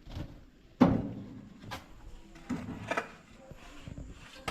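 A sudden loud thump about a second in, then fainter knocks and scraping: handling noises from the site work.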